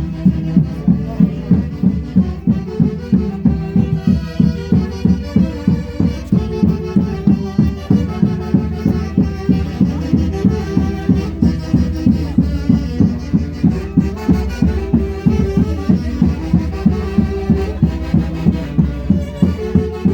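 Andean folk orchestra playing festive music with a steady, fast beat.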